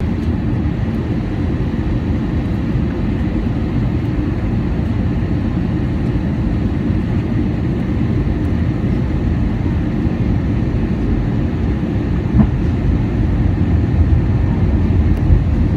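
Steady cabin noise inside an Airbus A320-216 in flight: a deep rumble of airflow and its CFM56 engines, with faint steady high tones. A short knock stands out about twelve seconds in.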